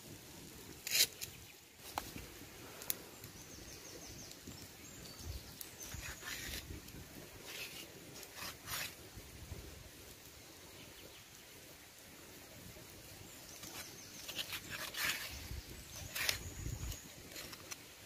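Raw meat being handled and sliced with a large knife on a stone slab: scattered soft slaps, knocks and knife scrapes against the rock, with a cluster of cutting sounds near the end. Faint high chirps in the background.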